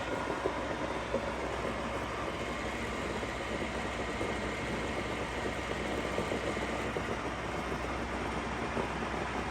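Novisa radial arm drill running with the spindle on power feed at its minimum feed rate, giving a steady machine hum.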